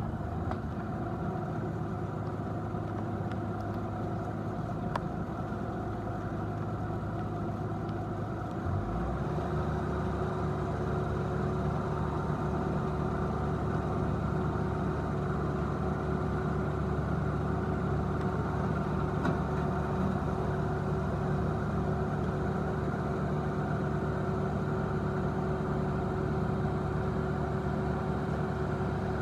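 Bobcat S650 skid steer's diesel engine running steadily. About nine seconds in, it picks up to a higher steady speed and runs a little louder.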